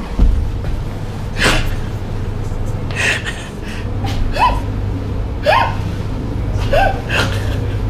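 A person laughing in breathy, gasping bursts about a second apart, with a few short rising squeaks of voice in the second half, over a steady low hum.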